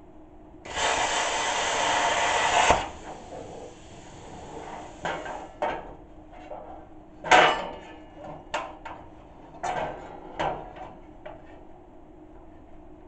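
Metal-workshop noise during sheet-metal fabrication. A loud hiss lasts about two seconds and stops abruptly, then tools and metal parts knock and clatter about eight times, the loudest knock about seven seconds in.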